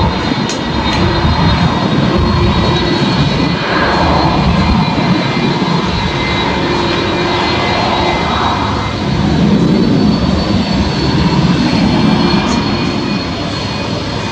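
Airbus A330-200's twin turbofan engines running at taxi power as the airliner taxis: a steady jet rumble with a thin high whine on top.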